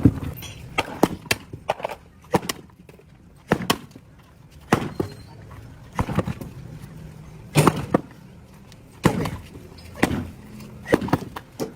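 Irregular sharp knocks and clattering of hard objects striking each other, single or in short clusters about every second or so.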